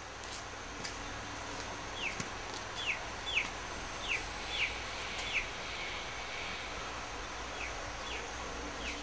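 Outdoor natural ambience: a steady hiss with a series of short falling chirps, about nine in all, coming in irregular runs.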